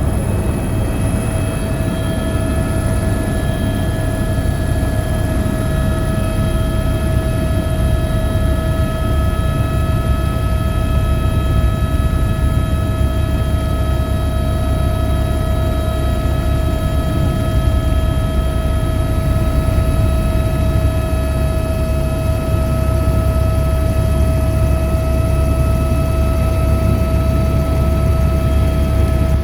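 Helicopter running steadily: a loud, constant low rotor-and-engine rumble with a steady whine over it.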